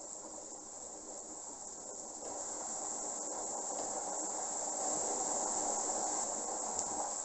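Water rushing through a hose pipe into a waterbed mattress during filling: a steady hiss that grows slightly louder, then dies away near the end.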